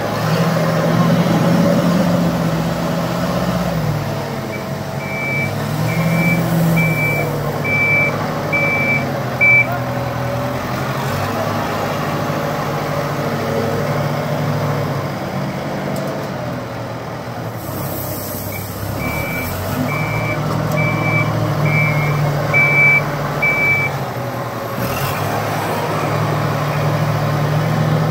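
Heavy diesel machinery working: a wheel loader's engine running and revving up and down, with a vehicle reversing alarm beeping in two runs of about six to seven evenly spaced beeps. Short hisses of released air come twice in the second half.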